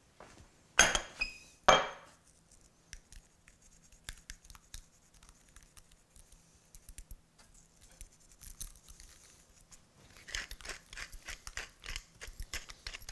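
Hand-twisted pepper mill grinding over the eggs: a quick run of rapid gritty clicks from about ten seconds in. Near the start there are two short, sharp clinks, followed by a few scattered light taps.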